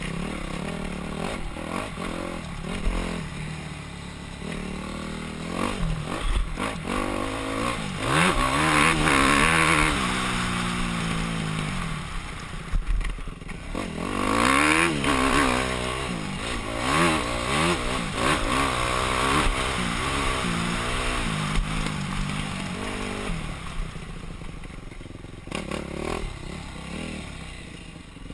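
Yamaha YZ250F single-cylinder four-stroke dirt bike engine being ridden hard, repeatedly revving up and easing off, its pitch climbing and falling through the gears. It is loudest in two long pulls, about a third of the way through and again around the middle, heard from a helmet-mounted camera.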